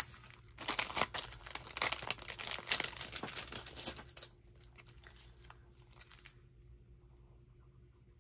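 Plastic photocard wrappers crinkling and rustling as a stack of wrapped cards is handled. The rustling is dense for the first few seconds, thins out after about four seconds and stops about two seconds later.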